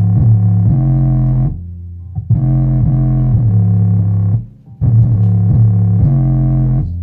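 Loud bass-test music played through a subwoofer: a deep bass line repeating the same phrase about every two and a half seconds, with a short drop between phrases.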